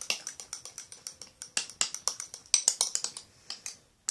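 Spoon stirring thick, foamy shaving-cream slime mixture in a bowl, ticking quickly against the bowl's side at several clicks a second, with a short pause near the end.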